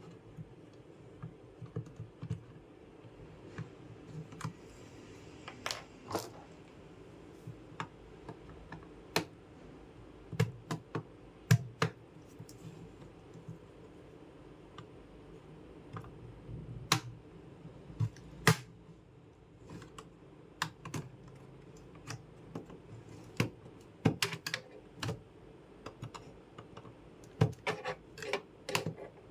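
Irregular light clicks and taps of small hard plastic and metal computer parts being handled, a few louder knocks among them, over a faint steady low hum.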